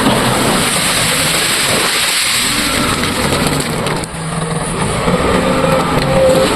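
Diesel engine of a JCB 3DX backhoe loader running as it works, loud and steady, with a short dip about four seconds in.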